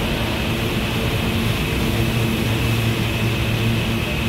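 New York City subway train noise: a steady rumble with a constant low hum and a thin, high whine above it.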